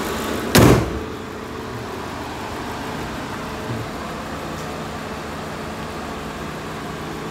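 Bonnet of a 2018 Jaguar XF pushed down and latching shut with one loud thud about half a second in. After it, the car's 2.0-litre turbocharged four-cylinder engine idles steadily.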